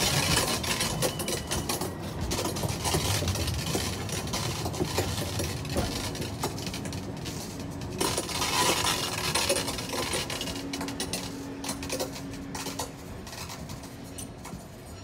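Tram-train rolling past close by and pulling away: its wheels clatter and click over the track with a metallic clinking, a steady low tone joins in about halfway, and the whole sound fades as the train moves off.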